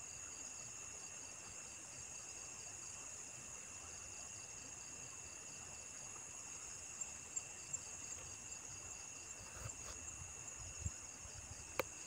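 Night insects, crickets, chirping steadily in several overlapping high pitches, one of them in a fast, even pulse. A few soft knocks come in the second half, and a sharp click comes shortly before the end.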